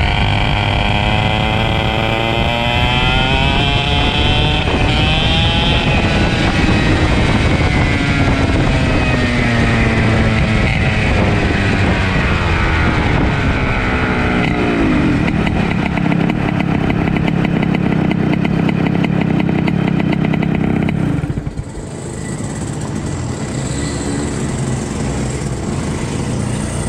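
Racing kart engine heard from on board, revving up and down through the corners. About fifteen seconds in it drops to a steady low note, and it cuts off about six seconds later, leaving quieter background noise.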